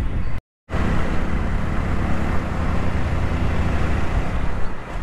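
Steady rumble of road and traffic noise heard from a moving two-wheeler in city traffic. The sound cuts out completely for about a quarter of a second just under half a second in.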